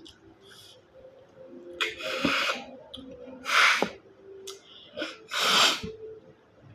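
Three sharp, hissy slurps as cooked freshwater snails (bisukol in coconut milk) are sucked out of their shells at the mouth: about two seconds in, halfway, and near the end, each about half a second long.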